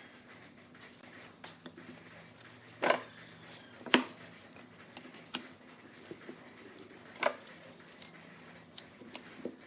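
A series of sharp knocks and clicks, about six, the loudest two about three and four seconds in, over a faint steady low hum.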